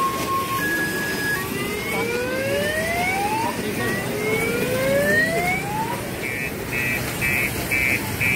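Electronic siren sound effects over the hubbub of a crowded market: alternating two-tone beeps, then two slow rising wails, then a quick run of warbling bleeps near the end.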